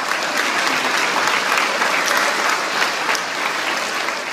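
Large crowd applauding steadily in a standing ovation, dense clapping in a big room that starts to fade near the end.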